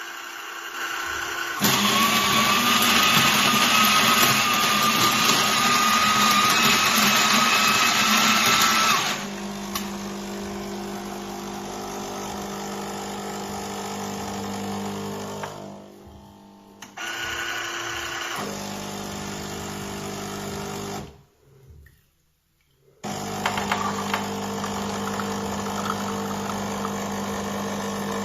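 KRUPS Arabica Digital bean-to-cup coffee machine running. A loud grinding burst with a faintly rising whine lasts about seven seconds, followed by a steadier, quieter hum that cuts out briefly twice.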